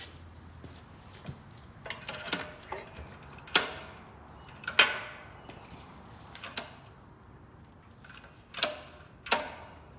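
Six or so separate sharp metallic clicks and clanks, spread irregularly, the loudest two a little over a second apart near the middle, from hands working on a partly dismantled portable generator while it is readied for a start attempt.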